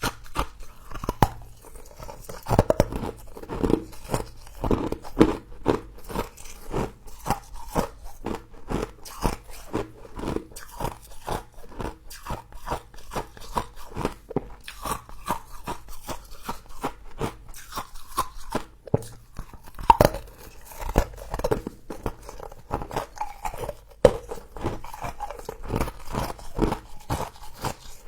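Close-up crunching and chewing of frozen humidifier frost: bites and chews that crackle sharply and unevenly, several times a second.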